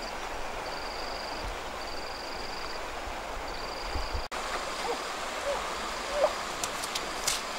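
Steady rushing of a swollen, muddy river, with a thin high note repeating about once a second that stops about four seconds in. A few faint short chirps follow.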